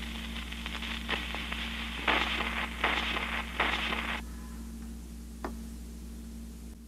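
Crackle and surface noise of a 78 rpm record in its run-out groove, played through a 1950s Bozo children's phonograph with a crystal cartridge and small speaker, with a louder swish on each turn of the disc over a steady low hum. About four seconds in the noise cuts off as the tonearm is lifted, and a single light click follows.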